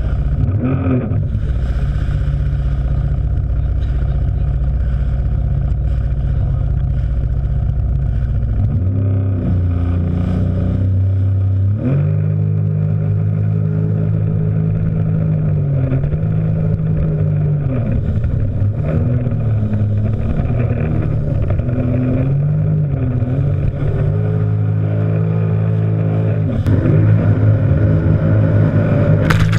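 Jet ski engine running at speed, its pitch dipping and rising with the throttle, over water rushing and splashing against the hull. Near the end it gets louder as spray breaks over the bow.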